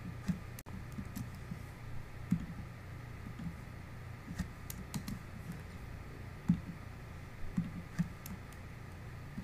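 Typing on a computer keyboard: irregular, scattered key clicks over a faint steady low hum.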